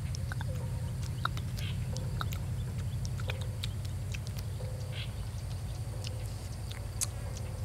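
Close-miked eating of grilled pork rib: scattered wet clicks of chewing and lip smacks, with a few short puffs of breath blowing on the hot meat. A steady low hum runs underneath.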